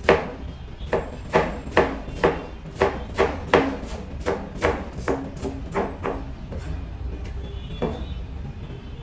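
A kitchen knife slicing cabbage on a plastic cutting board, the blade knocking on the board about twice a second. The cuts stop after about six seconds, with one more cut near the end.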